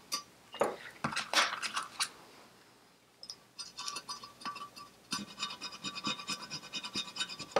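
Scotch-Brite abrasive pad scrubbing old gasket sealant off the gasket face of an aluminium Citroën 2CV crankcase half, in quick back-and-forth strokes. A few scattered scrapes come first, then a short lull, then steady scrubbing from about three seconds in.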